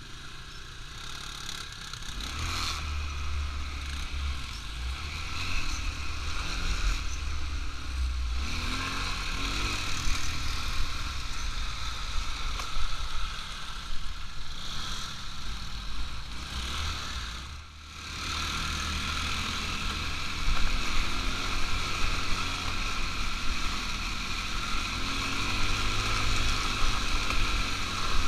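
ATV engine running while riding, its pitch rising and falling with the throttle, over a heavy low rumble of wind on the microphone. The sound dips briefly about eighteen seconds in.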